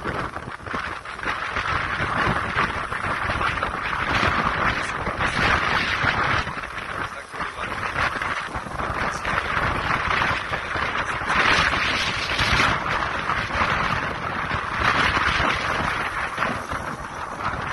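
Strong gusting wind: a loud, unpitched rush that swells and eases in gusts.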